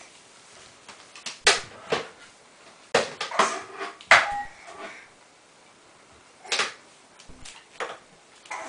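Sharp knocks and clatters of hard plastic toys, banged and handled by a baby against a toy shelf: a cluster of hits in the first half, then a few scattered ones.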